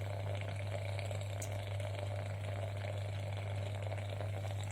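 Electric steam vaporizer running and steaming: a steady low hum with a faint even hiss of boiling water.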